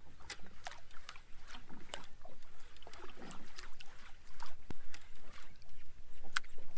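Small fishing boat drifting on the water: irregular light clicks and knocks over a faint steady low hum.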